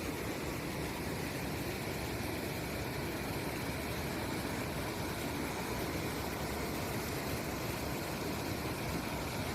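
Steady rush of water pouring over a waterfall.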